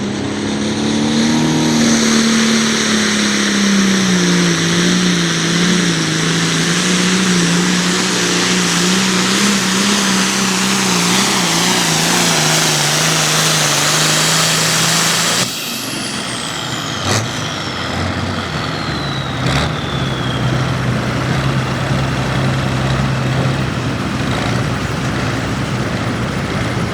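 A 466-cubic-inch hot farm pulling tractor's diesel engine running at full throttle under load, its pitch wavering for about fifteen seconds, then cutting back abruptly as the throttle comes off. Afterwards the engine runs on at a lower, steady pitch while a high whine falls away over several seconds, with two sharp clicks.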